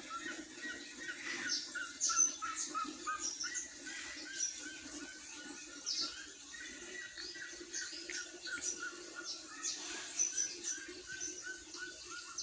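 Birds chirping, many short calls over one another, over a steady low hum.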